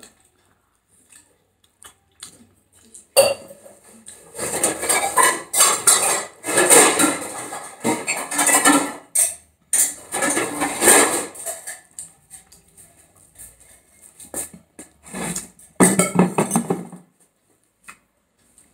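Fingers mixing rice and curry on a plate, with food squelching and scraping against the plate in irregular bursts. One long busy stretch is followed by a short burst near the end.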